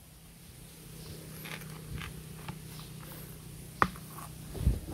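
Scattered clicks and scraping from the grass trimmer being handled and set in place, over a faint steady low hum, with a soft thump near the end.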